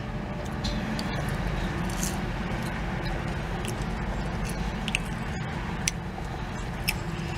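A person chewing french fries with the mouth closed, with a few faint, short mouth clicks, over a steady low rumble inside a car.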